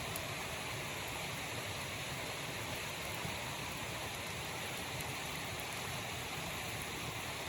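Steady rushing of a waterfall, an even hiss of falling water with no change in level.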